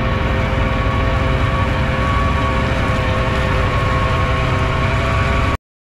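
Fendt 1050 tractor working under load while it drives a Kuhn rotary tiller through the soil: steady, loud engine and machinery noise with a high whine running through it. It cuts off abruptly near the end.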